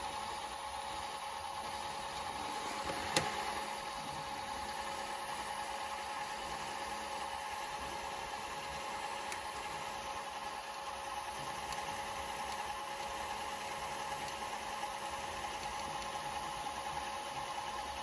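Broksonic TV/VCR combo's tape mechanism rewinding a VHS cassette: a steady motor whine, with a single sharp click about three seconds in.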